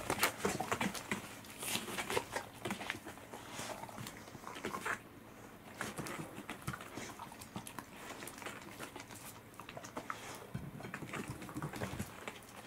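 Pembroke Welsh corgi licking its lips and chewing fish, an irregular string of small wet clicks and smacks.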